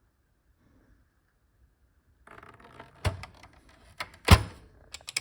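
Handling noise: objects being moved and set down, with a rustle and several sharp knocks, the loudest a little past the middle. It begins after about two seconds of near silence.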